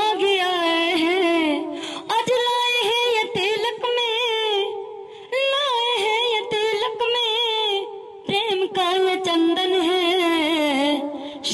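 A woman singing solo into a microphone, holding long wavering notes in phrases with short breaths between them and no instruments.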